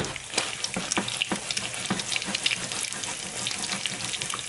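Eggs frying in bubbling butter in a nonstick skillet: a steady sizzle dotted with many quick pops and crackles.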